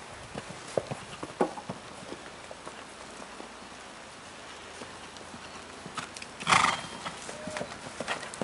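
Hoofbeats of a skewbald Irish cob cantering on grass, with one loud, breathy burst of sound from the horse about six and a half seconds in.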